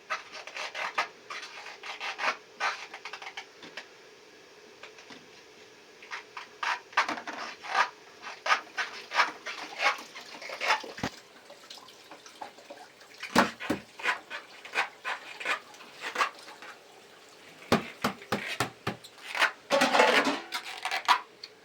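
Rubbing and scraping on a surface in quick, irregular strokes that come in runs, pausing briefly about four seconds in, with a few sharper knocks later on.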